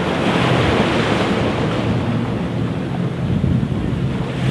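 Sea waves washing onto the beach, with wind buffeting the microphone in a steady low rumble.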